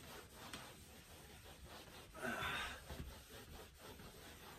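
A handheld eraser rubbing across a chalkboard in wiping strokes, with one louder stroke a little past halfway.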